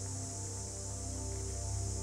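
Background music: sustained, slowly changing notes over a steady low drone, with no clear beat.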